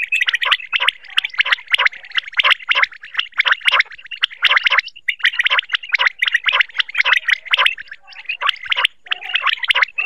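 Common quail calling: fast runs of sharp, repeated notes in bursts of a second or two, with short breaks and a longer pause about eight seconds in. A recorded call of the kind played as a lure in quail hunting and netting.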